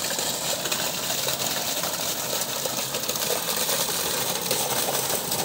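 Solar-powered irrigation pump's electric motor running steadily, with water gushing out of its outlet pipe.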